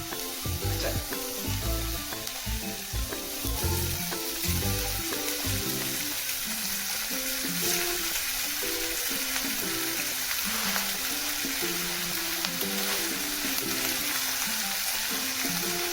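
Steady sizzling of food frying, with background music playing a melody over it. A few low thumps sound in the first five seconds.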